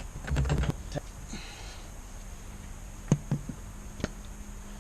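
Scattered sharp metallic clicks and knocks, a quick cluster in the first second and a few single ones about three and four seconds in: tools working on the John Deere 1010's engine as it is turned over by hand after being freed from seizure.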